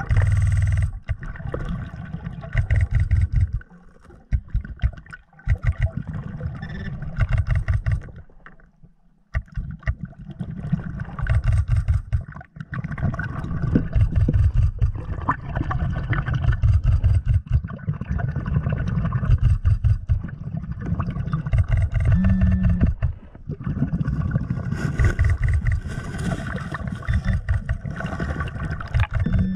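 Underwater rumbling and churning heard through a submerged camera, with a steady motor-like hum running through it; it dips quieter for a moment about eight seconds in.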